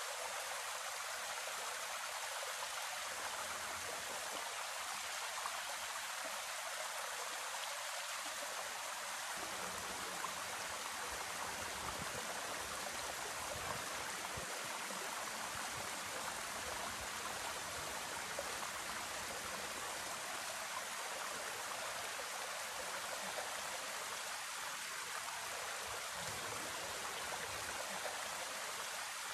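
Small waterfall spilling down a rock face into a shallow stream: a steady rush of falling water.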